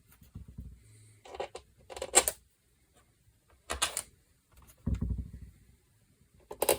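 Small metal screws clicking and tapping as they are set into the screw holes of a plastic laptop bottom case, with a few sharp ticks and some low handling rumble.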